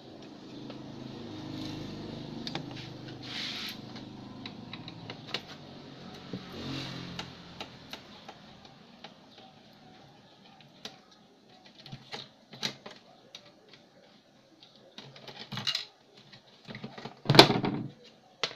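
Scattered clicks, taps and plastic rattles of a speaker being unscrewed and worked loose from a CRT television's plastic cabinet, with one sharper knock near the end.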